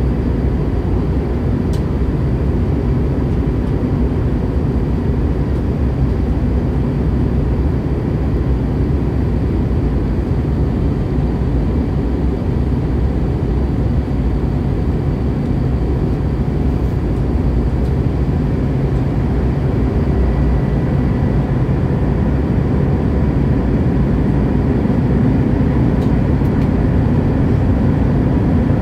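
Airliner cabin noise on the approach to landing: the jet engines and rushing air heard from a window seat, a steady low rumble with a faint constant whine over it.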